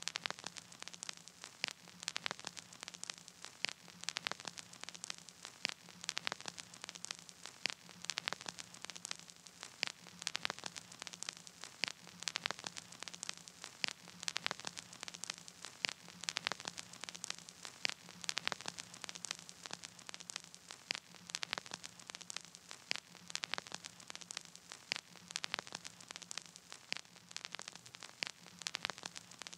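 Crackling static with no music: a steady hiss broken by irregular sharp clicks, one or two a second, over a faint low hum.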